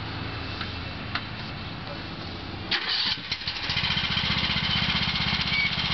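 John Deere riding lawn tractor's engine being started: a click and a short whirr of the starter a little before halfway, then the engine catches and runs with an even, steady beat.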